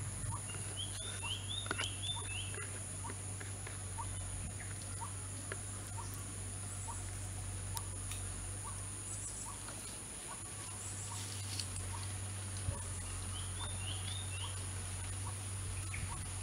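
Outdoor background: a steady high-pitched drone and a low hum, with short chirping calls in quick runs of three or four, once shortly after the start and once more late on. Faint small ticks sound about twice a second throughout.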